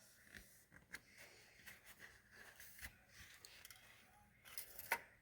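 Near silence with faint small clicks and scrapes of handling, and a sharper click near the end.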